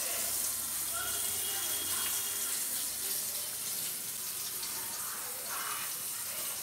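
Batter-coated prawns deep-frying in a pan of hot oil: a steady sizzling hiss.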